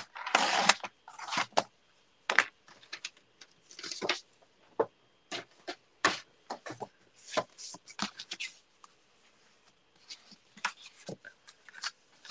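Cardstock being scored and cut on a sliding paper trimmer: scratchy sweeps of the blade along the card near the start and again about four seconds in, among irregular taps and clicks as the trimmer, card and tools are handled.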